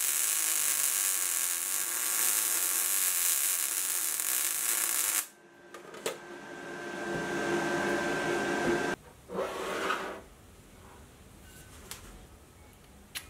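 Wire-feed (MIG) welding arc crackling and hissing steadily for about five seconds as steel guide pins are welded into a steel block, then cutting off. A second, quieter noise swells over a few seconds and stops sharply, followed by a brief burst and a single click near the end.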